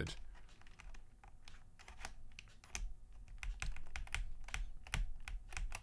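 Typing on a Drunkdeer A75 (M75) mechanical keyboard with proprietary contactless magnetic switches: irregular keystroke clacks, several a second.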